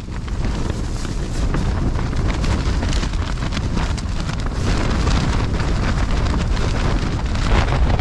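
Gale-force wind blowing hard across the microphone, a heavy low rumble, with the tent's fabric flapping and rattling in the gusts as the door is held open.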